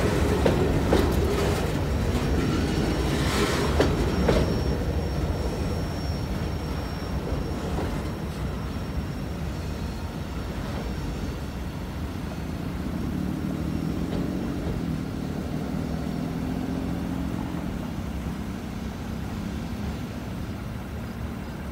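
Boxcars of a Canadian Pacific freight train rolling past on the rails, the wheels knocking over the track in the first few seconds. The rolling noise fades steadily as the last cars pull away.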